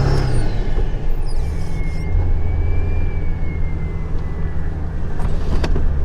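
Ford 7.3L Powerstroke turbo diesel under way: the turbo whistle falls from a high pitch as the engine revs drop in the first second, then settles into a steady lower whistle over the diesel's running note. A short click sounds near the end.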